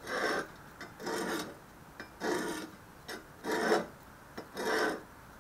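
Steel edge of a folding survival shovel drawn over the coarse side of a sharpening stone: five even scraping strokes, about one a second.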